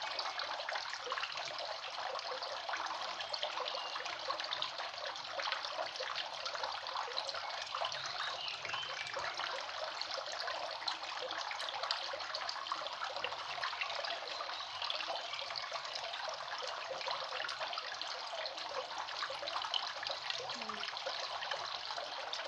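Steady trickling, water-like hiss made of many tiny crackles, unchanging throughout.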